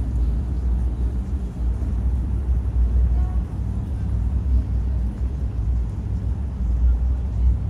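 Low, steady rumble of outdoor city background noise, with no single clear source standing out.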